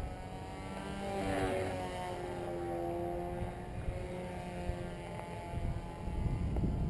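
RC flying wing's 1450 kv electric motor and 9x4 slow-fly propeller buzzing as the plane flies past, its pitch falling about a second in and then holding steadier and fainter. Wind rumbles on the microphone, heavier near the end.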